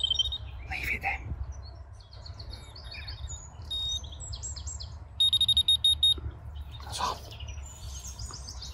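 Electronic carp bite alarm giving rapid runs of short, high beeps, once right at the start and again, louder, about five seconds in, as the line is moved across its sensor while the rod is set on the bank stick. Small birds chirp between the beeps.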